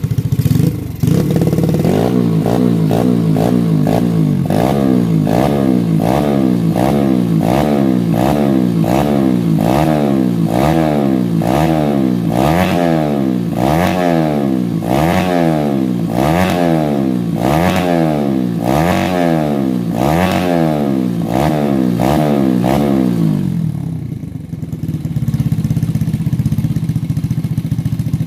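Yamaha Vega R's four-stroke single-cylinder engine, bored up with a 53 mm FIM piston and fed by a 28 mm PWK carburettor, revved over and over: the throttle is blipped about once a second, each rev rising and falling quickly in pitch. About 24 seconds in it drops back to a steady idle.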